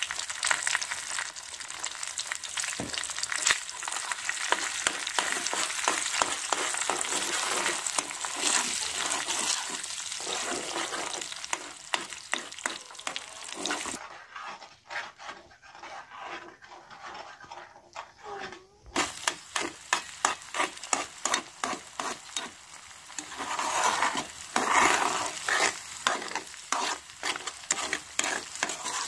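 Eggs frying in oil in an aluminium pan, sizzling, as they are scrambled with a metal spoon that scrapes and clicks rapidly against the pan.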